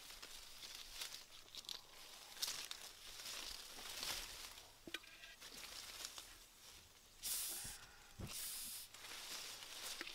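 Leaves and thin branches rustling and crackling as someone moves among them, with scattered light snaps and two louder bursts of rustle about seven and eight seconds in.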